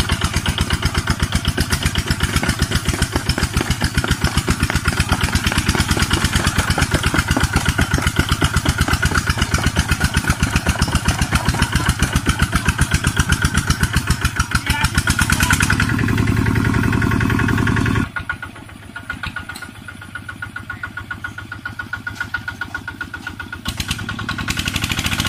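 Two-wheel walking tractor's single-cylinder diesel engine chugging in a steady, rapid beat while it drags a loaded trailer through deep mud. The sound drops suddenly and turns much fainter about two-thirds of the way through, then swells again near the end.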